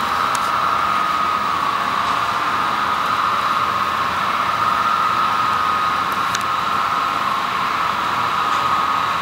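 HO scale model trains running on the layout: a steady whirring hiss with a wavering hum, and a faint click or two.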